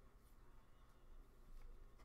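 Near silence: room tone with a couple of faint clicks.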